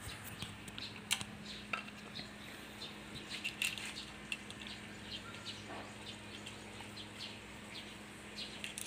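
Scattered light clicks and taps from handling hand tools and the aluminium screen door frame, with two sharper knocks in the first two seconds, over a steady low hum.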